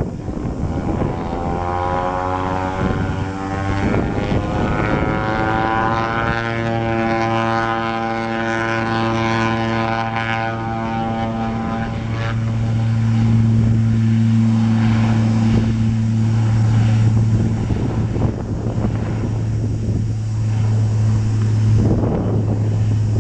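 Twin Pratt & Whitney Canada PT6A-60A turboprop engines of a Beechcraft King Air 350 powering up for takeoff: a whine that rises in pitch for about six seconds, then holds steady, over the constant low drone of the propellers.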